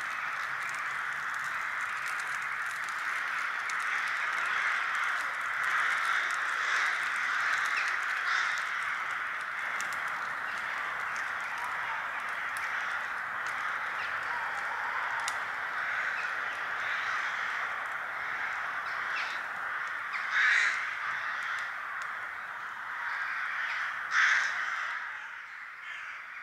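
A large flock of crows cawing together in a steady, continuous din, with two louder calls standing out near the end.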